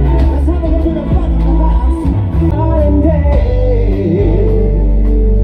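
Glam rock band playing live: a male vocalist singing over electric guitar, bass guitar, drums and keyboard.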